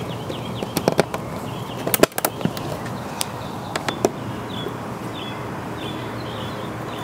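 Sharp metallic clicks and taps of hand tools and screws being worked while fitting parts to a motorcycle, clustered in the first four seconds with the loudest about two seconds in. Short high chirps repeat about twice a second over a steady background hiss.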